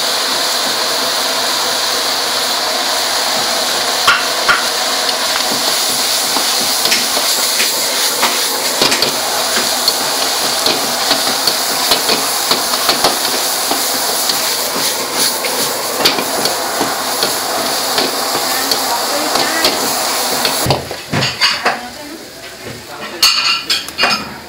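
Water mimosa stir-frying in a steel wok: steady sizzling, with a metal ladle scraping and clanking against the wok. Near the end the sizzling cuts off suddenly, leaving a few sharp knocks of the ladle on the wok.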